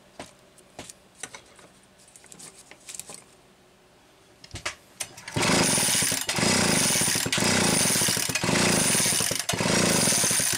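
Homelite 360 chainsaw's recoil starter pulled about five times in quick succession, each pull about a second long, spinning the engine over to test the ignition for a spark at a spark tester. A few light clicks of handling come before the pulls.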